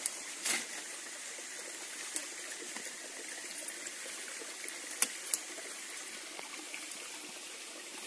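Steady rush of running water, with a few sharp clicks about half a second in and twice around five seconds in.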